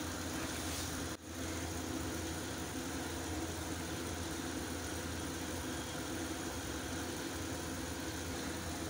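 Steady low mechanical hum of a running motor, with a brief dropout about a second in.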